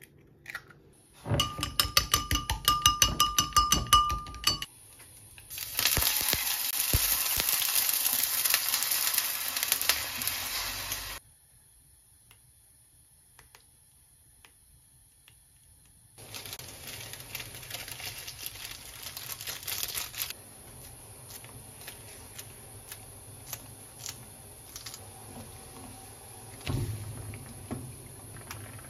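Egg being beaten with a utensil in a glass measuring cup: quick clinking against the glass with a ringing tone, for about three seconds. Then a steady sizzling hiss for about five seconds, typical of beaten egg frying in a pan, and after a quiet stretch more hissing with scattered light clicks.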